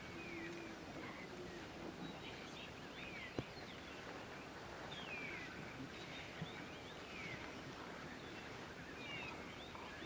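Small birds chirping: many short, high, falling calls scattered over a faint, steady outdoor background, with one sharp click about three and a half seconds in.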